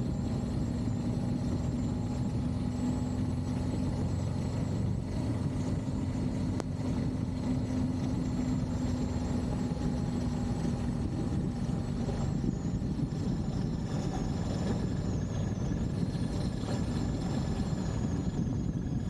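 Honda XL Varadero V-twin motorcycle running steadily on the move, with low wind noise on the microphone. A steady low hum in the engine sound fades away about eleven seconds in.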